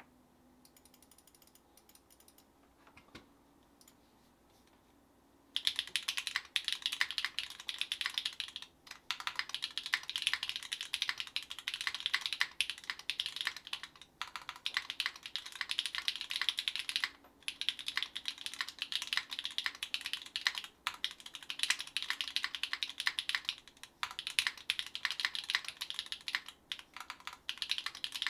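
Fast typing on a SINGAKBD Kohaku R1 mechanical keyboard with Gateron x Sillyworks Slay Type A switches on an aluminum plate, with GMK keycaps. It starts about five seconds in after a near-quiet stretch with a few faint ticks, then runs as a dense stream of key clicks broken by short pauses every few seconds.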